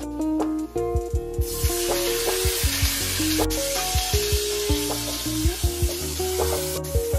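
Diced pork and sliced garlic sizzling hard in hot oil in a frying pan, the hiss coming in abruptly about a second and a half in. Background music with a steady beat plays throughout.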